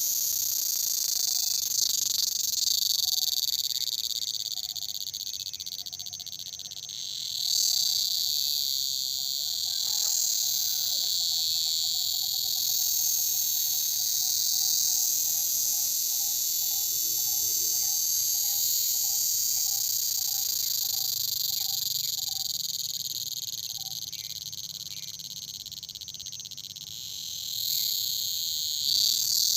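Dense chorus of crickets shrilling without a break, swelling and fading twice. Through the middle a faint call repeats steadily, about two notes a second.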